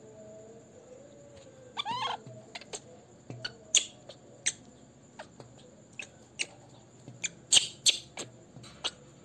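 Baby macaque giving short, high squeaks at irregular intervals, with one slightly longer call that rises and falls about two seconds in.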